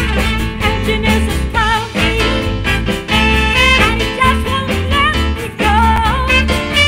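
A live dance band playing an upbeat swing-style number with drums, congas, bass, horns and singing.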